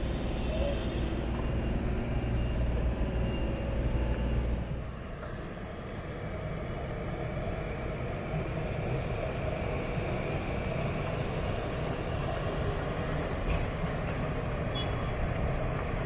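City street ambience: a steady low rumble of traffic, heavier for the first few seconds and then settling to a lower, even hum.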